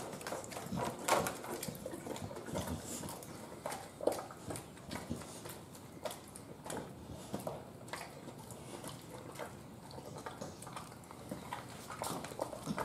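American Bully dog chewing and smacking on a raw ground-beef meatball, with irregular wet clicks and light knocks throughout.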